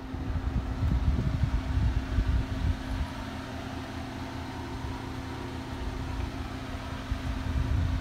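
Vehicle engine idling steadily with a constant hum, with wind rumbling on the microphone during the first three seconds.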